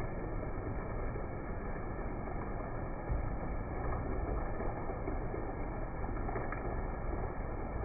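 Heavy rain falling steadily, an even, unbroken rush with a deep low rumble.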